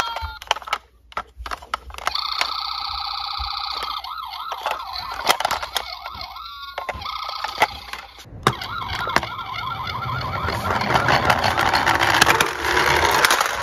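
Toy ambulance's battery-powered electronic siren sounding after a few handling clicks. It switches between a steady pulsing tone and a rising-and-falling wail. Near the end the siren is mixed with a rougher rattling noise, the toy's wheels rolling on the surface.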